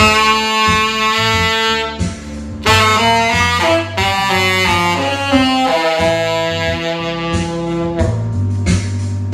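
Yamaha tenor saxophone with a Theo Wanne Durga 7* mouthpiece and Yamaha Custom V1 neck, playing a jazz melody over a backing track with a bass line. It opens on a long held note for about two seconds, moves into a phrase of shorter changing notes, and holds another long note near the end.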